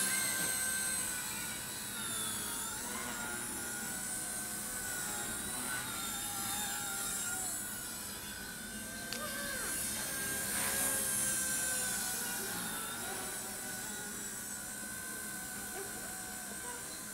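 Blade mCP X micro electric RC helicopter with performance rotor blades flying: a steady high-pitched rotor and motor whine that bends up and down in pitch as it manoeuvres, swelling louder about ten seconds in.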